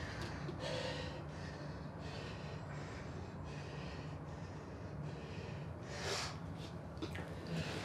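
A man breathing heavily through his mouth, a run of hard breaths in and out about once a second, out of breath from exercise, with a stronger gasp about six seconds in.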